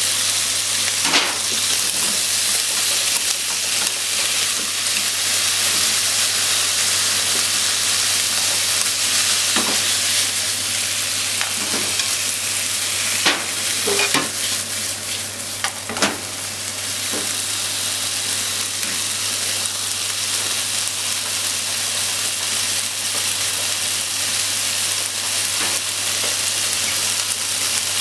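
Salmon and sliced potatoes sizzling steadily in a nonstick frying pan, with chopsticks clicking against the pan now and then as the food is stirred, most often a little past the middle.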